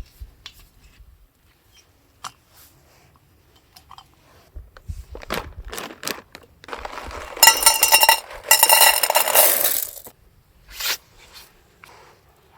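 Camp cooking gear being handled: scattered clinks and taps of a pot and utensils, then a loud rushing noise for about three seconds, starting around seven seconds in, before a few more taps.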